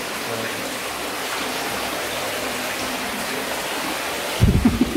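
Steady sound of running, splashing water in a cement fish pond. Near the end come a few loud, sudden splashes and knocks as a hand net is pushed into the water.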